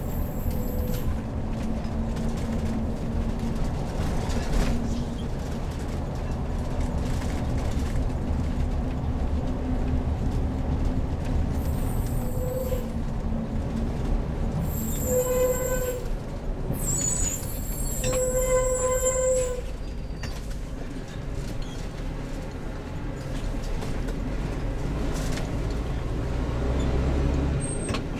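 Engine and road noise of a truck-based motorhome being driven, a steady low rumble. In the middle come a few short squealing tones, the longest lasting about a second and a half, with bursts of hiss around them.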